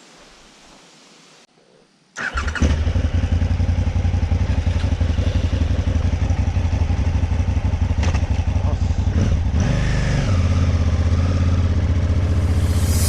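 Motorcycle engine starting about two seconds in and then running with a fast, even pulse; its note changes around ten seconds in.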